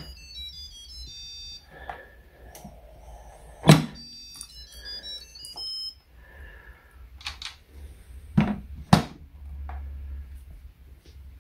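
Instant Pot electric pressure cooker lid being twisted open and lifted off once the pressure has fully released. A short electronic jingle of quick notes plays twice, near the start and again around five seconds in. Lid clunks come in between, the loudest about four seconds in and two more near nine seconds.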